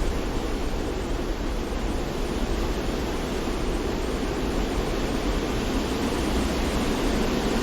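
Steady rush of wind and waves, even and unbroken, with most of its weight in a deep low rumble.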